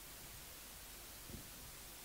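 Faint steady hiss of room tone and recording noise, with one soft low thump past the middle.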